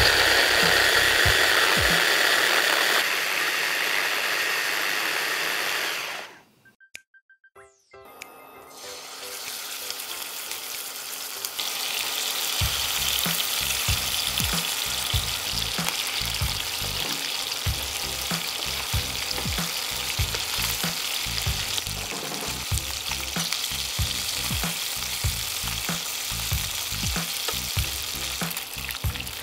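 Electric mini chopper running hard on mango chunks for about six seconds, then cutting off. After a moment of near silence, chicken pieces start sizzling steadily as they fry in oil in a pan, later joined by a steady beat of background music.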